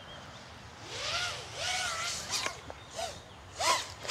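Home-built FPV racing drone's motors whining in short throttle bursts, the pitch rising and falling about five times as the drone dives. The last burst, near the end, is the loudest.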